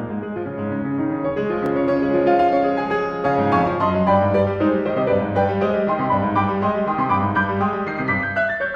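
Background instrumental music played on piano, a steady run of notes.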